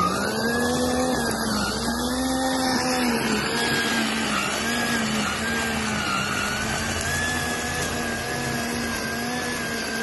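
Motor whine of a home-built remote-control weed trimmer driving through grass with its cutting disc spinning, the pitch dipping and rising again and again as it works.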